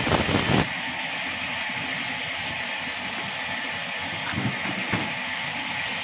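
Vertical band saw running and cutting through logs: a steady, high-pitched hiss, with a brief louder rasp in the first half second.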